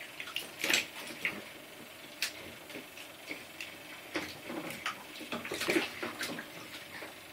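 Scattered small splashes and knocks as a baby plays in bath water in a plastic infant bath tub, flapping a wet washcloth. The loudest come about a second in and again near six seconds in, with a sharp click a little after two seconds.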